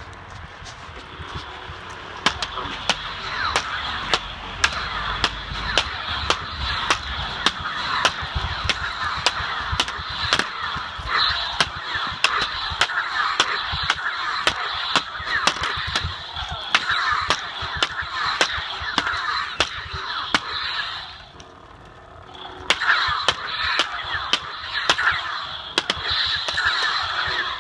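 Plastic lightsaber blades clacking together again and again in a duel, sharp knocks about one or two a second. Behind them is a continuous rasping, hissing sound that stops for a second or two about three-quarters of the way through.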